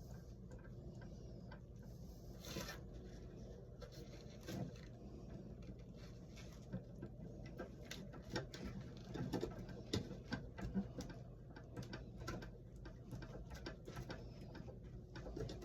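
Faint scattered clicks and scrapes of hands and tools working at a wall light switch and its wiring, trying to pull a stuck wire loose, over a steady low hum. The clicks come a little louder and closer together in the middle.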